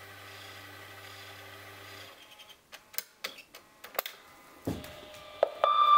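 Answering machine starting playback: its motor whirs steadily for about two seconds and stops, the mechanism clicks and clunks several times, then a loud electronic beep sounds near the end.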